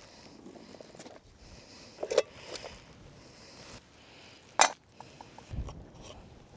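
Metal camping cook pots being handled, clinking and knocking a few times, with one sharp clank about halfway through and a dull thud soon after.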